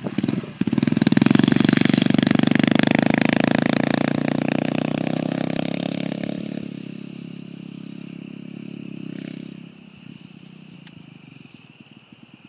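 Honda CRF70 dirt bike's small single-cylinder four-stroke engine running under throttle as it is ridden close past, loud for the first few seconds, then fading steadily as the bike moves away until it is faint by about ten seconds in.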